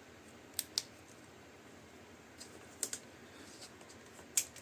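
A few sharp, light clicks of small plastic gear being handled: a quick pair about half a second in, a softer one near three seconds and a stronger one near the end, over quiet room tone.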